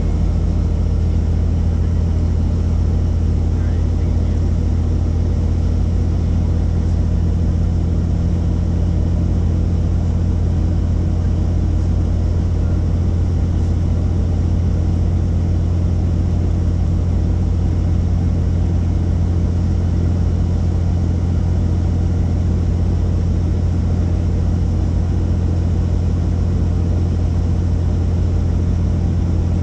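Helicopter rotor and engine running: a loud, steady low drone that does not change.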